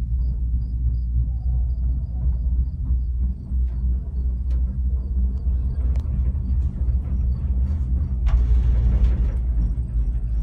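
A gondola cabin riding the cable lift gives a steady low rumble, with scattered light clicks and rattles. About eight seconds in, a louder rush of noise swells for a second or so.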